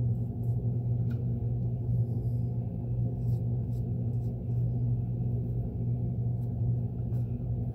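Steady low electric hum of a running shop motor, with a few faint light clicks from hand tools working the boot's heel seat.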